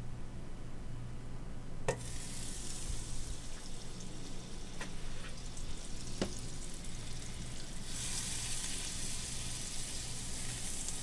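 Food frying in a hot cast-iron pan: a sizzle starts with a sharp clack about two seconds in and grows louder near the end, with a few more sharp clacks along the way.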